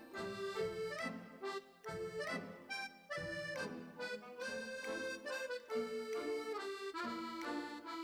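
Instrumental background music: a melody of held notes changing every half second or so over a steady accompaniment.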